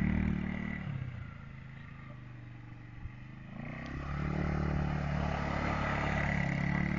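Sport ATV's engine revving while the quad slides on grass: loud at first, easing off after about a second, then revving up again about three and a half seconds in and running hard.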